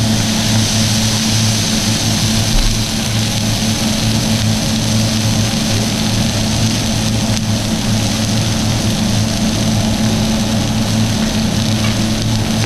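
Food sizzling on a hot flat-top griddle as pieces of duck and onion are turned with tongs, over a steady mechanical hum with a low drone.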